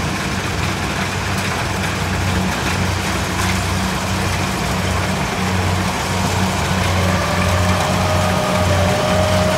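Kubota DC70 combine harvester's diesel engine running steadily, with the machine's mechanical clatter over a low pulsing hum.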